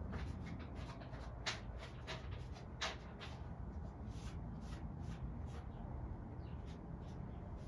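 Light handling noises of lawn mower air filter parts: scattered small clicks and rustles, with two sharper clicks about a second and a half and three seconds in, over a steady low hum.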